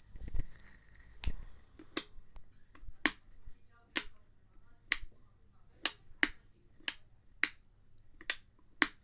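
A low thump at the start, then a run of about eleven sharp, dry clicks, roughly one a second and unevenly spaced.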